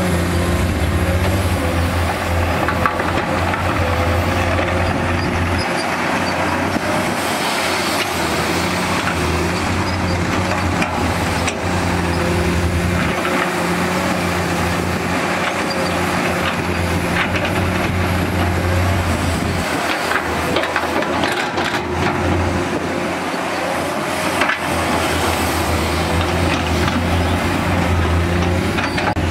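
Komatsu PC210 hydraulic excavator's diesel engine running under digging load. Its low note swells and eases in stretches of several seconds as the machine works through its dig-and-swing cycle, with a few short knocks.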